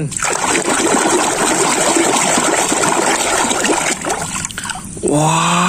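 Water sloshing and splashing in a tub as a hand swishes a plastic toy around in it. The sound dies away about four seconds in.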